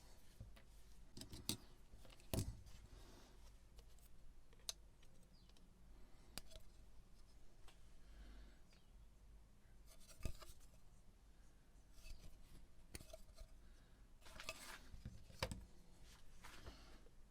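Sparse light clicks, taps and scrapes of small metal tools and parts being handled as an old hard disk drive is taken apart, with a few sharper clicks about two and a half, ten and fifteen seconds in.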